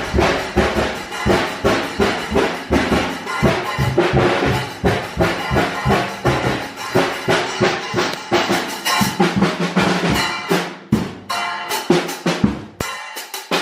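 Acoustic drum kit played loud and fast with drumsticks: a steady run of bass drum, snare and tom strikes with no pause.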